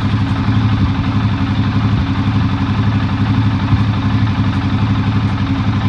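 2015 CFMOTO CFORCE 500's single-cylinder four-stroke engine idling steadily while warming up, with its radiator cooling fan not yet switched on.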